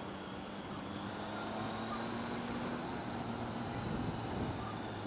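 Triumph Tiger 800's three-cylinder engine running at a steady pitch while riding, under a steady rush of wind noise. About four seconds in, the engine pitch dips and rises again.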